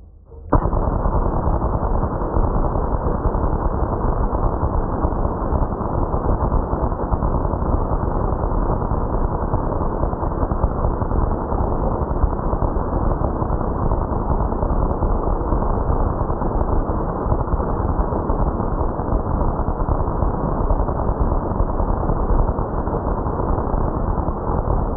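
High-voltage arcs from a homemade foil-and-plastic capacitor, driven to about 400,000 volts, discharging in a loud, continuous dense crackle. The highs are cut off, so it sounds muffled and rumbling. It starts abruptly about half a second in and fades out at the end.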